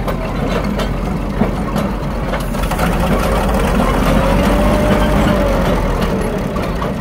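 1928 Lombard half-track dump truck's engine running steadily as the truck crawls past on its tracks, with scattered light clicks and a faint whine that rises and falls in the second half.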